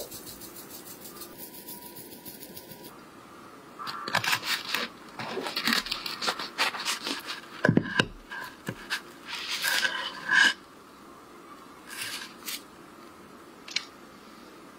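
A knife sawing through toasted bread crust, with irregular crunching and scraping bursts for several seconds. Before it there is a quick, even run of light taps from a small sieve being shaken to sprinkle crumbs.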